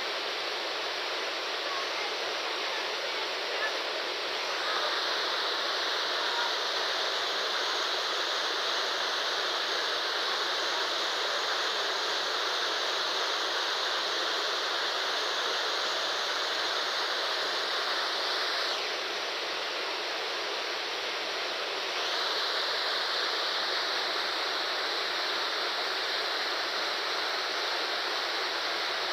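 Waterfall: a steady rush of falling water. It grows louder and brighter about four seconds in, dips for a few seconds in the middle, then rises again.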